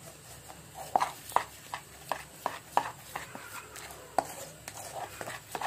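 Metal spoon clicking and scraping against a small steel bowl as a thick gram-flour (besan) paste is stirred, giving a run of irregular sharp clicks from about a second in.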